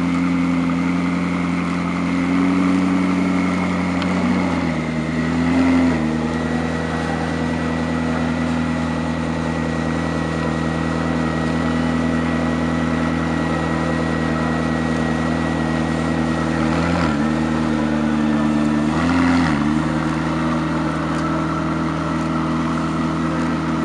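McLaren P1's twin-turbo V8 idling steadily, its pitch dipping and coming back up briefly three times.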